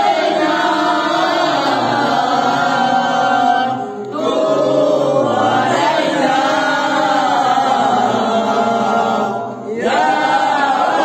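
A group of male voices chanting an Arabic devotional recitation in unison. The chant runs in long sung phrases, with short breaks about four seconds in and again near ten seconds.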